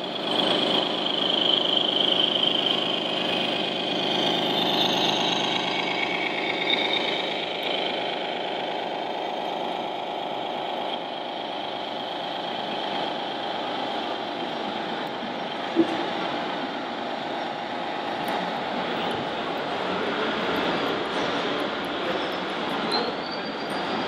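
RC model MAN tipper truck's sound module playing a diesel truck engine running steadily, with hall noise around it. In the first several seconds a high whine rises and falls over the engine sound, and about sixteen seconds in there is a single sharp knock.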